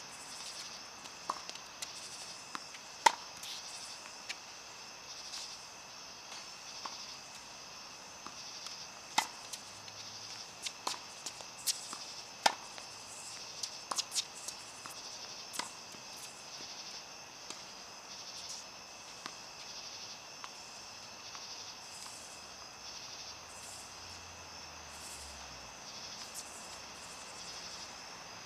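Irregular sharp knocks of tennis balls being struck by racquets and bouncing on the court, some in quick pairs, over a steady high buzz of insects.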